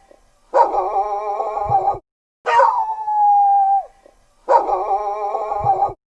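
Dog howling sound effect: a wavering howl, then a call that slides down into a long held note, then the wavering howl again, each lasting about a second and a half with short gaps between.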